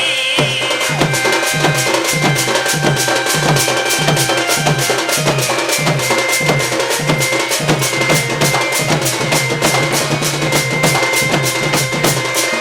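Danda nacha folk accompaniment: drums keep a steady fast beat of about two to three low strokes a second under rapid cymbal strikes, with a long held high note over them.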